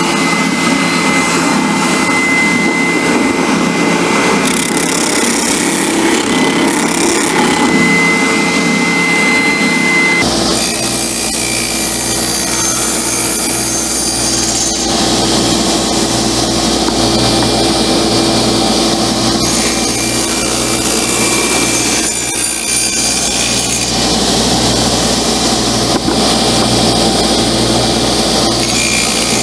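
Oscillating spindle sander running while the dovetailed box's corners are sanded on it. About ten seconds in it gives way to a table saw running, the box pushed along the rip fence so the blade cuts through its sides to split off the lid.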